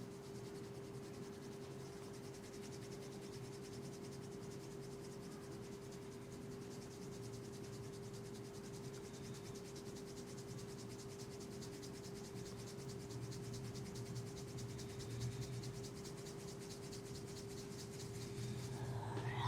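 Hands rubbing quickly and steadily in a massage: a fast, even run of rubbing strokes over a steady low hum.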